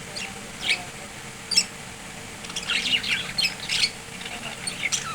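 Budgerigars chattering in short, sharp chirps and squawks, scattered at first and bunching into a busy run of calls in the middle.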